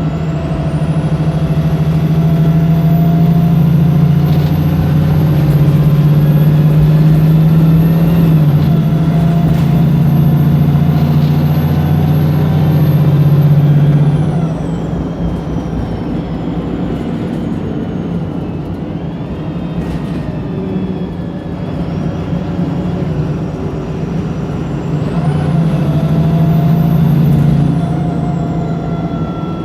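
Wright Pulsar single-decker bus's diesel engine under hard acceleration (kickdown), heard from inside the bus, with a high whine that rises and holds. About halfway through the engine eases off and the whine falls away, then it pulls hard again briefly near the end.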